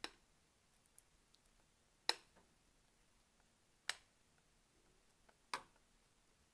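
Four sharp taps, about two seconds apart, as thick batter is scraped out of a glass mixing bowl with a silicone spatula into a baking tin: the spatula and bowl knocking against each other and the tin. The loudest comes about two seconds in.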